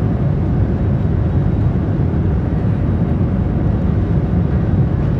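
Steady low rumble inside the cabin of a Boeing 737-700 rolling along the ground with its CFM56 engines running, heard from a window seat over the wing.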